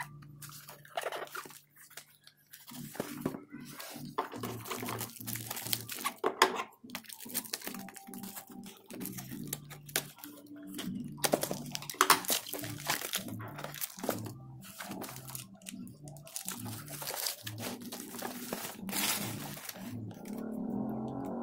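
Clear plastic wrap crinkling and tearing as it is pulled off a cardboard box by hand, with cardboard rubbing and creasing: irregular crackles throughout.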